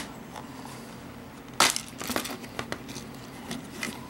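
Plastic Blu-ray case being handled and snapped open: one sharp plastic click about one and a half seconds in, followed by a few smaller clicks and rustling.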